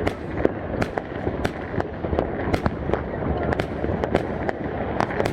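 Fireworks going off in a rapid, irregular series of sharp bangs and crackles, several a second, over a continuous din of further explosions and crowd noise.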